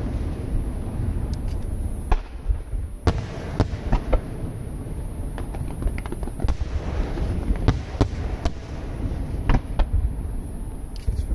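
Aerial fireworks shells bursting one after another, sharp bangs about once or twice a second over a continuous low rumble and crackle.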